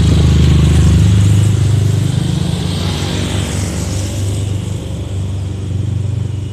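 Diesel engine of a Pandawa 87 bus running close by, a deep steady engine note that eases off a little after about a second and a half.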